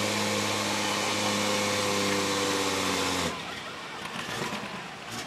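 Turbocharged diesel engine of a super/pro stock pulling tractor running at a steady speed, then cutting off abruptly about three seconds in.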